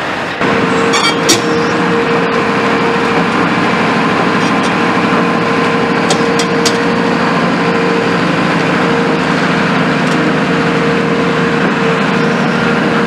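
Caterpillar 340F tracked excavator's diesel engine running steadily, with a steady tone over the engine sound. A few short clicks come about a second in and again around six seconds in.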